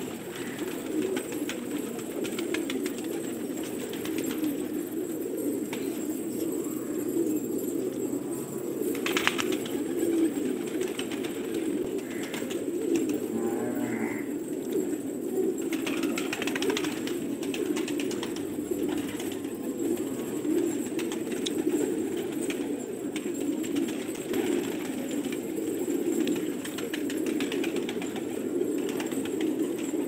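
A flock of gola pigeons cooing without a break, many low coos overlapping into a steady murmur.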